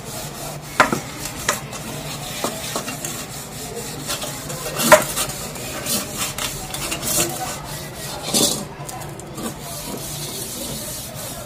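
Metal utensils scrubbed by hand: a steel bowl and then a metal wok rubbed with a scourer, a rasping scrub broken by scattered clinks and knocks of metal against metal and concrete, the loudest knock about five seconds in.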